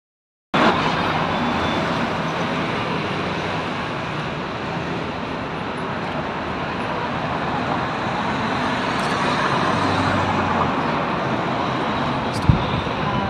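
Steady street traffic noise from cars on a city road, an even wash of sound that begins after a brief silence, with one short click near the end.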